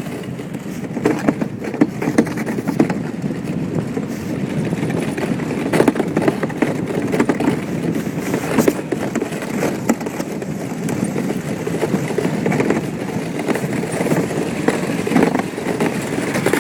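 Iceboat runners rumbling over lake ice: a steady rough noise broken by frequent small clicks and cracks.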